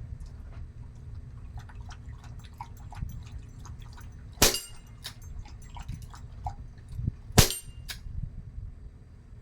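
Two shots from a CO2 air revolver, about three seconds apart, each a sharp crack with a short metallic ring after it, with faint clicks of the gun being handled in between.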